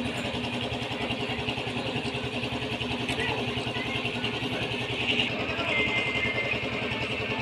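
An engine running steadily with a fast, even chug.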